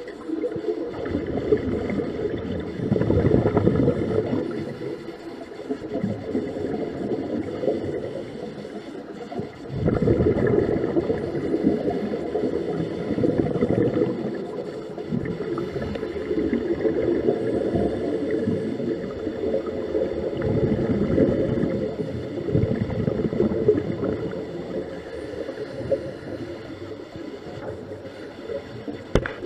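Scuba regulator exhaust bubbles heard underwater: a low rumbling gurgle in long surges of several seconds, easing off briefly between breaths.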